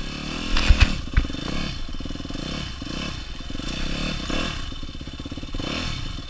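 Yamaha YZ250F dirt bike's single-cylinder four-stroke engine revving up and down while riding a rocky trail, with two sharp knocks about a second in.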